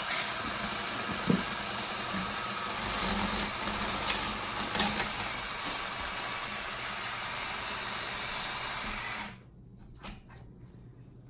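Toy blender's small motor running with a steady whirr and a few sharp plastic clicks, switching off suddenly about nine seconds in.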